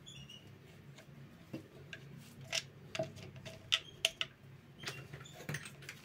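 Scattered light clicks and taps from plastic washing machine parts being handled, several in the second half, over a faint low hum.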